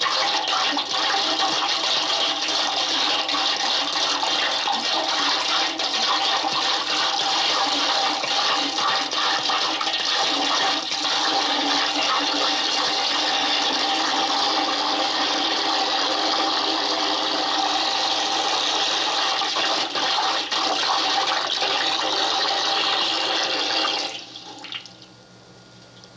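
A recorded rushing-water sound effect, like a toilet flushing or water pouring, played back from cassette on a 1976 Sony TC-520CS stereo cassette player. It runs steadily and loud, then stops abruptly near the end, leaving only tape hiss and a low hum.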